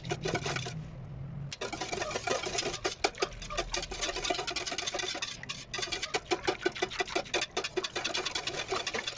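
Wire whisk rattling and clicking against a stainless steel basin as it stirs a thin chocolate milk mixture, a rapid run of clicks several a second with brief pauses about a second in and again around five and a half seconds.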